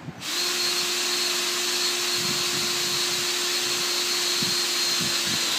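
Electric power tool's motor running steadily with a constant whine and hiss, switched on just after the start and off near the end, about five seconds in all.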